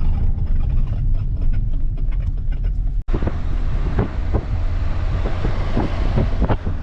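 Car driving on the road, heard from inside the cabin: a steady low engine and road rumble with a few light knocks and rattles. The sound drops out for an instant about three seconds in, then carries on.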